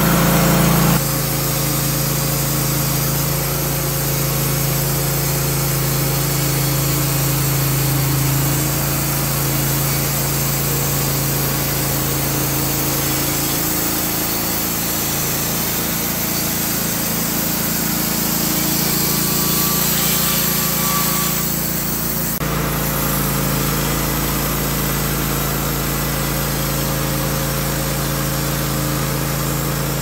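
Wood-Mizer LT15 portable band sawmill running steadily, its band blade cutting through a cedar log. The engine's note shifts abruptly about a second in and again about 22 seconds in.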